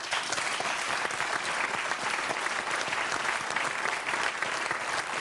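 Studio audience applauding, a dense steady clapping that breaks out suddenly.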